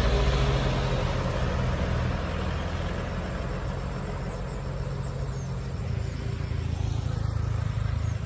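Road traffic passing on a bend. A loaded Mitsubishi Fuso box truck's diesel engine runs as it drives off and fades, a car follows it past, and a motorcycle grows louder as it approaches near the end.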